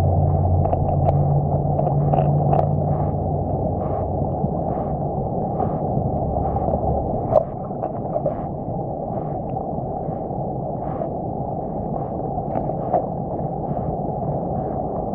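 Muffled, steady rush of stream water recorded underwater through a GoPro's waterproof housing, with a low rumble that fades out about halfway and a single sharp click just after it. Faint ticks sound now and then over the rush.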